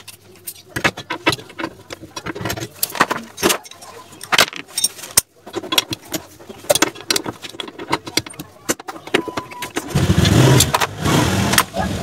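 A socket ratchet and metal tools clicking and clinking while the mounting bolts of a refrigerator compressor are undone. About ten seconds in, a loud low rumble begins.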